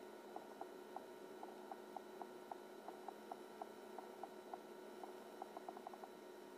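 Faint steady high-pitched hum from the electroluminescent dial panel's transformer, around 2 kHz. Irregular soft ticks come a few times a second and crowd together near the end.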